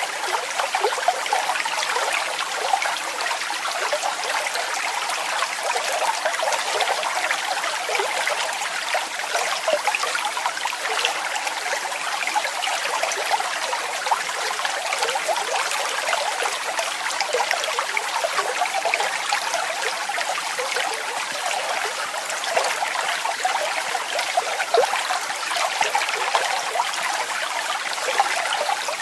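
Small waterfall: water falling and splashing steadily, a continuous bright trickling and splashing without let-up.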